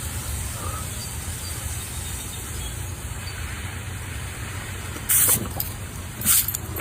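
Steady low rumbling hiss, with two short, bright hissing bursts about five and six seconds in.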